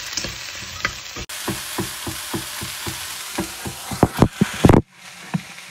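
Chopped leeks and onion sizzling in butter in a pan, stirred with a spatula in regular strokes about three a second. The strokes turn into louder knocks near the end, then the frying sound drops away abruptly.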